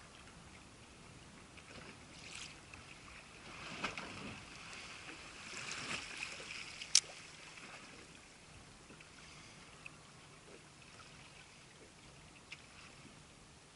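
Small waves lapping faintly against the side of a small boat, with a few louder splashy swishes a few seconds in and one sharp click about seven seconds in.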